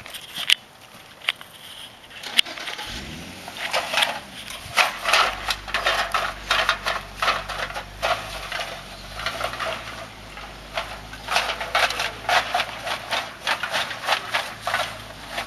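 A plastic bag crinkling and rustling in quick, irregular strokes as it is shaken in a rider's hand on horseback. Under it a low engine hum comes up about three seconds in and then holds steady.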